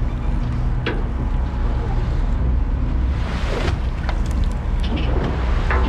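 A boat's engine running steadily under wind buffeting the microphone, with water rushing and splashing along the hull, swelling about three seconds in.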